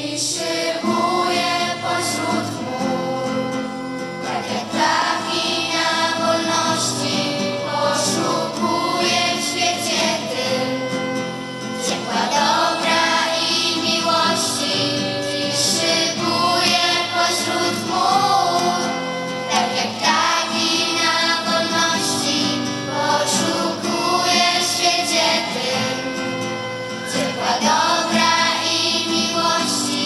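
Children's choir singing a song in Polish together on stage microphones.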